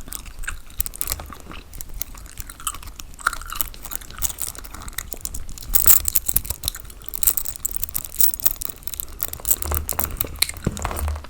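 Close-miked gum chewing: wet, irregular clicking and smacking of the mouth, with a few low thumps near the end.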